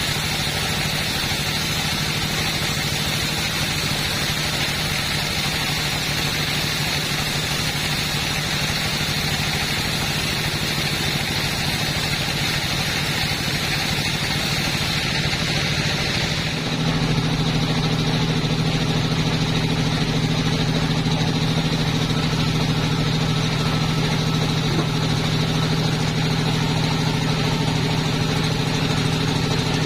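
Two-stroke chainsaw engine running steadily at high revs, with a hiss over the engine note. About sixteen seconds in the hiss drops away, and the engine note gets stronger and slightly louder.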